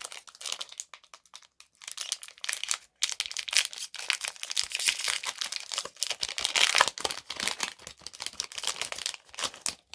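Foil wrapper of a Pokémon trading card booster pack crinkling and tearing as it is torn open, a run of dense, irregular crackles with short pauses.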